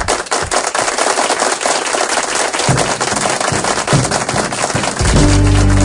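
Dense, irregular clapping of applause for about five seconds. Then the band comes in with held guitar and bass chords.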